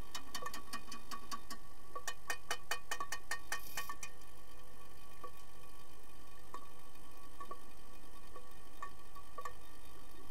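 Sharp clicks and knocks heard underwater from an underwater hockey game: sticks striking the lead puck, each other and the pool floor. A quick run of clicks comes about two seconds in, then single knocks every second or so, over a steady underwater hum.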